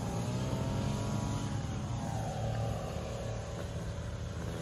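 A motor vehicle's engine running steadily, its pitch sagging and rising slightly.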